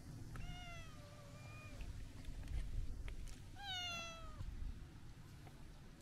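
Long-haired brown-tabby-and-white cat meowing twice: a drawn-out meow about half a second in, and another about three and a half seconds in, each falling in pitch.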